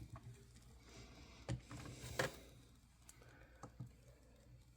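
Faint, scattered clicks and light knocks of small hard objects being handled on a table, a few separate taps about a second and a half and two seconds in, and two more close together near the end.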